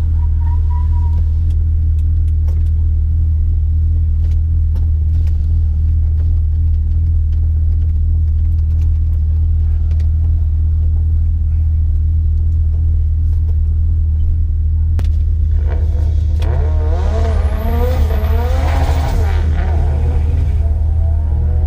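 Car engine running as a loud, constant low drone. In the last six seconds or so, wavering higher-pitched sounds join it.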